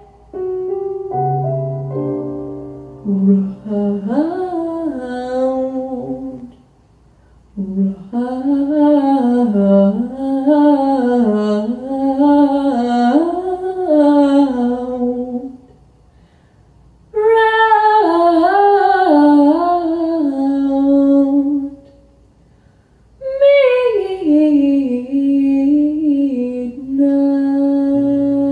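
A woman singing a slow, wordless jazz vocal line into a handheld microphone, in long phrases that slide and waver in pitch with short breaths between them. Sustained chords sound underneath at the start and near the end.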